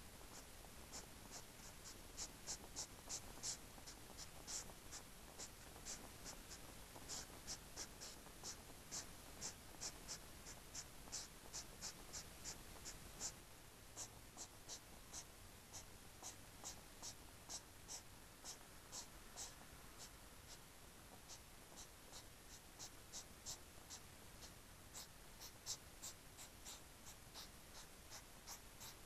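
European hedgehog courtship snorting: a rapid, rhythmic series of short, sharp snorts, about three a second, from the female turning on the spot while the male circles her. The snorts come most thickly in the first half and grow sparser later.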